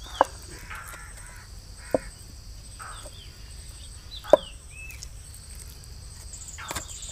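A wooden spoon knocks against a clay bowl three times, the last knock loudest, while pulling boiled chicken meat off the bone. Birds chirp faintly in the background over a steady high insect trill.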